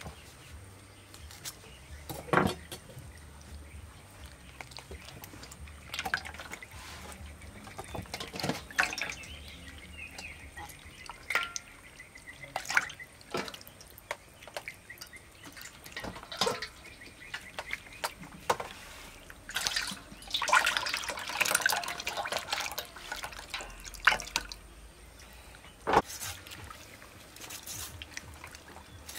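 Raw beef intestine being cut and handled over a steel bowl: liquid dripping and splashing into the bowl, with scattered sharp knocks of the knife and wet meat against the metal, and a busier stretch of wet handling about two-thirds of the way through.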